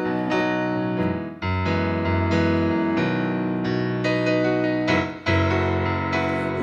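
Piano playing sustained chords, a new chord struck about every second, with brief breaks about one and a half and five seconds in.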